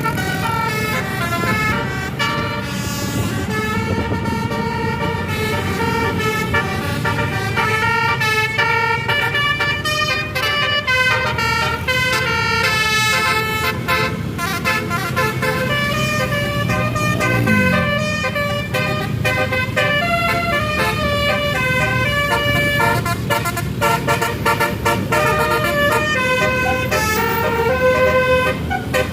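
Tour bus telolet musical horns (basuri type) playing a melody of short held notes that step up and down in pitch, over a low vehicle rumble.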